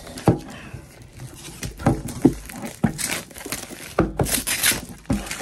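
Hands opening a cardboard toy box: plastic wrapping crinkling and tearing, mixed with light knocks and taps of the cardboard being handled. The crinkling comes in two louder bursts, about three seconds in and again just after four seconds.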